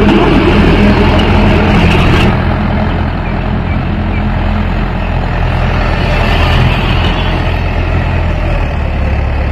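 Mahindra 415 DI tractor's diesel engine running steadily while it pulls a nine-tine spring cultivator through the soil. It gets a little quieter after about two seconds as the tractor moves away.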